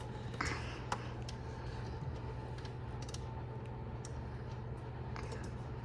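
A few light clicks of an Allen wrench turning the set screw of a refrigerator door handle, over a steady low hum.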